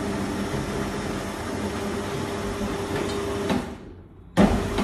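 Two-post car lift's electric hydraulic pump running with a steady hum as the car is lowered. The hum stops about three and a half seconds in, and a single loud clunk follows near the end.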